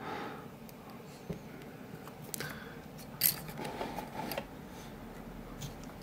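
A lock pick working inside a brass Ace pin-tumbler padlock's keyway: faint metal scraping with a few sharp little ticks, the clearest about halfway through.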